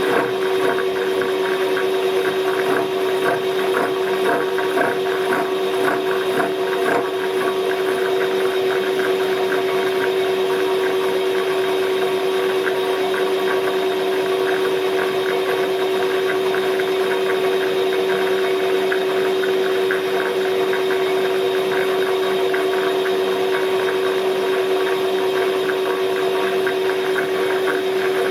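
Milling machine running a fat slitting-saw cutter through the underside of a weld-built brake caliper mounting lug on a scooter engine casing: a steady hum with a fine, fast chatter from the cutter.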